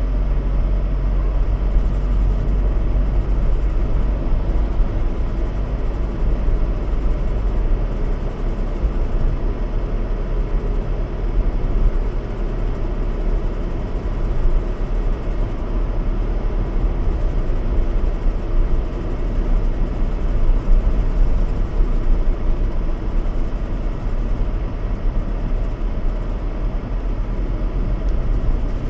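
Steady road and engine noise inside a moving car's cabin, a deep low rumble under an even hiss.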